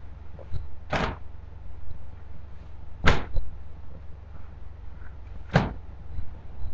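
Elastic trouser braces pulled out and let go, snapping back against the shirt three times, about two to two and a half seconds apart.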